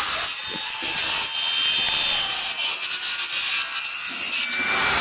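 Saw cutting wood: a steady, rough rasping noise.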